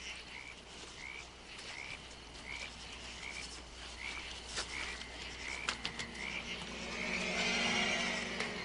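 Night-time woods ambience: a frog calling with a short chirp about every two-thirds of a second, with a few sharp snaps in the middle. About six seconds in, a low sustained drone comes in and swells.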